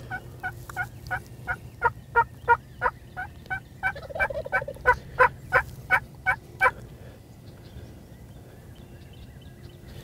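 A long run of about twenty loud turkey yelps, about three a second, that stops about seven seconds in.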